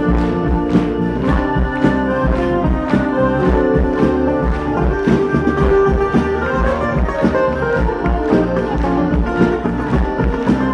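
Live acoustic band playing an instrumental passage: strummed acoustic guitars over sustained accordion tones, with a steady beat.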